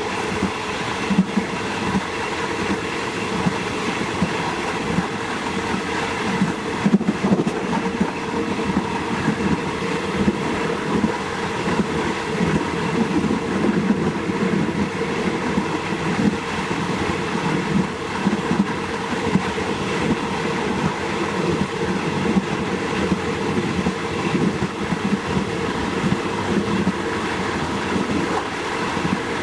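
Diesel train running steadily along the track: a continuous rumble of wheels on rail under a steady hum, with a couple of sharp clicks from the wheels passing rail joints.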